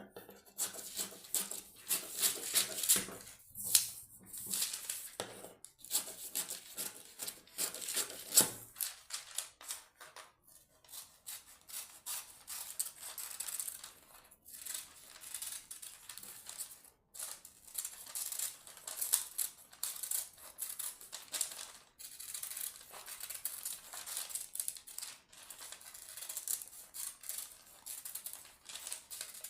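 Scissors cutting through baking-lining paper: a long run of irregular snips and paper rustles as circles are cut out.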